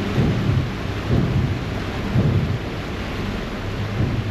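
Ferry under way, heard from the open stern deck: a steady low engine rumble and the rushing churn of the propeller wash, with wind buffeting the microphone in uneven low surges.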